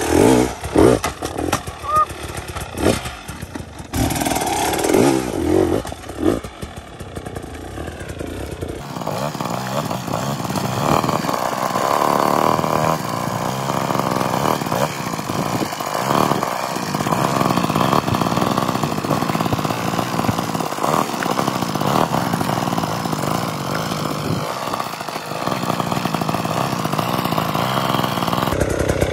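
Two-stroke GasGas dirt bike engine running at low revs, blipped in short bursts of throttle for the first several seconds, then running more steadily for the rest.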